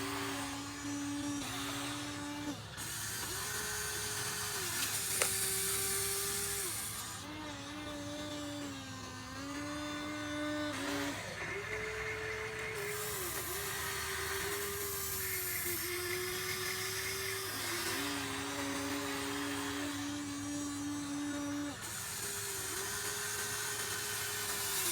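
Electric motors of a Huina 1593 RC excavator whining as it works, the pitch stepping up and down every second or two as different functions switch on and off, with a sharp click about five seconds in.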